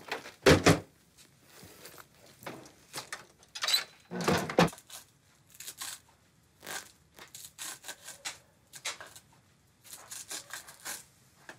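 Scattered soft clicks, knocks and rustles of handling and kitchen work at a counter, with one louder knock or scrape about four seconds in.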